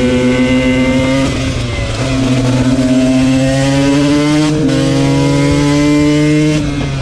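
KTM 125 two-stroke motard engine accelerating hard, its pitch climbing steadily and dropping at gear changes about a second in and about four and a half seconds in. The throttle closes near the end and the engine note falls away.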